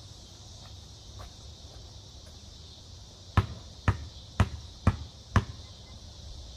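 Basketball dribbled on a concrete driveway: five sharp bounces about two a second, starting a little past halfway, as a free-throw routine before the shot.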